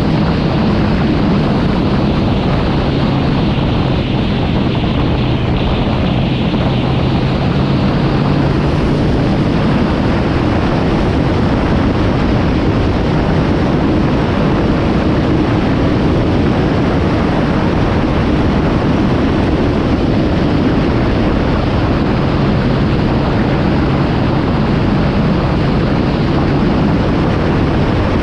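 Kawasaki Z750 motorcycle engine running at a steady cruise under loud, even wind rush on the microphone. The engine's steady hum stands out most in the first third and again near the end.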